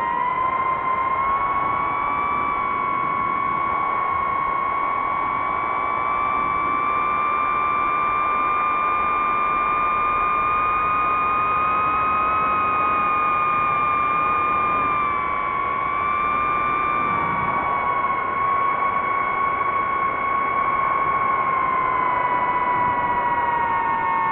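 DJI FPV drone's motors and propellers whining in flight, a steady high-pitched tone that drifts slightly up and down with throttle, over a hiss of rushing air. The pitch and level dip briefly about fifteen seconds in.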